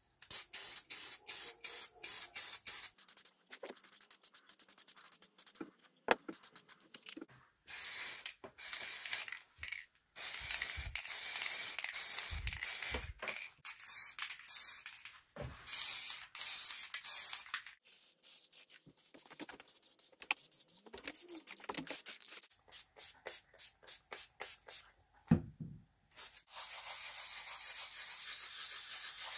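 Aerosol spray paint hissing in many short bursts and a few longer passes, coating a sheet-metal gauge cover. A single knock comes just before the end, and then a steady rubbing of sandpaper worked by hand over a painted cast-iron body.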